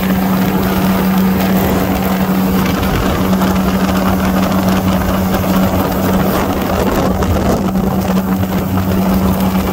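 A small aircraft's engine running steadily in flight, heard inside the cabin as a loud, even drone with one strong steady low note.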